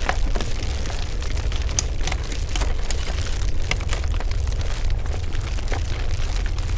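Layered foley sound effect: a deep steady rumble with scattered crackles and pops throughout.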